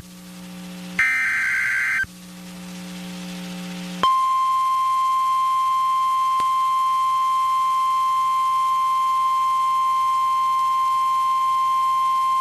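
NOAA Weather Radio emergency alert: a one-second burst of SAME digital header data about a second in. About four seconds in, the steady 1050 Hz warning alarm tone starts; it comes before a severe thunderstorm warning is read. A low hum runs under the gap before the tone.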